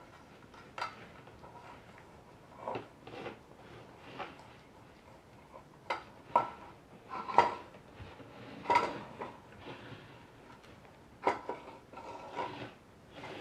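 Tin food can knocking and scraping on a wooden floor as a cat noses and pushes it. The clanks come irregularly, about a dozen of them, some ringing briefly.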